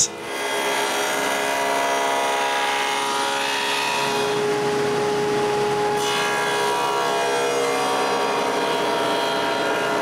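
Table saw running steadily while a hardwood board is fed over the blade, cutting a rabbet along its edge.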